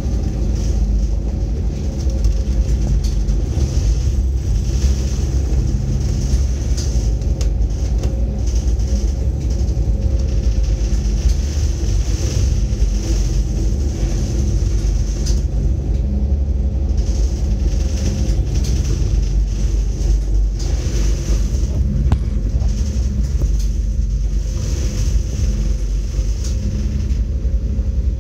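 A ship's engines and machinery running with a steady, heavy rumble and a low hum, with a hiss above it that swells and fades.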